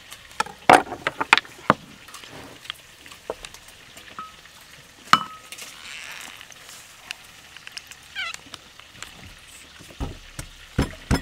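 Kitchen handling sounds: a plastic hand-held citrus squeezer, a ceramic bowl and halved limes knocking and clicking on a wooden chopping board, with a quick cluster of clicks in the first two seconds, a single knock about five seconds in and more just before the end.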